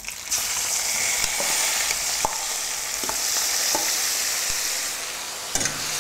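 Steamed jackfruit pieces going into hot mustard oil in a kadhai. The oil bursts into a steady sizzle just after the start, with a few clinks of a steel spoon against the bowl and pan.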